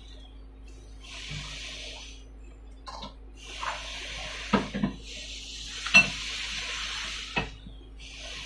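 Kimchi fried rice sizzling in a nonstick pan, the hiss coming in waves with a few sharp pops and crackles, the loudest about six seconds in. A steady low hum runs underneath.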